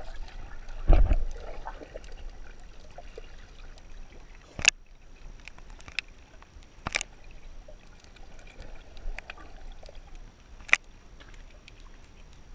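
Underwater sound picked up by a GoPro in its housing just below the surface while snorkelling: muffled water movement, with a dull thump about a second in and a few sharp, isolated clicks spread through the rest.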